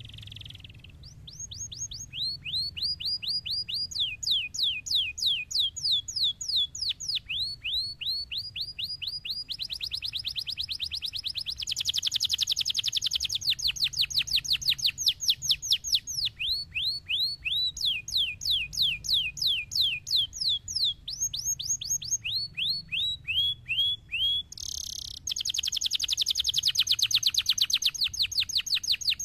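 Domestic canary singing: fast rolling trills of quickly repeated, downward-sweeping high notes, switching to a new trill at a different pitch every few seconds.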